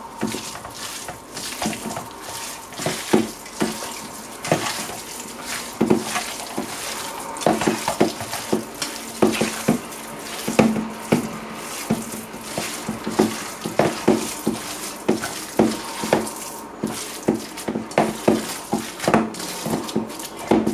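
A bare hand kneading and squeezing raw minced beef mixed with chopped onion, coriander and spices in a stainless steel pot: irregular wet squelches, several a second, as the meatball mixture is worked together.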